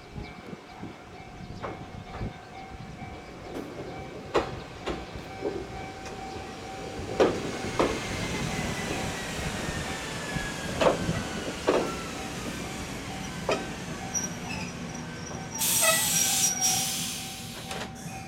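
Ichibata Electric Railway 7000-series and 2100-series electric trains pulling into a station together: wheels clacking over rail joints again and again, a motor whine falling in pitch as a train slows, then a loud burst of compressed-air hiss from the brakes as a train comes to a stop near the end.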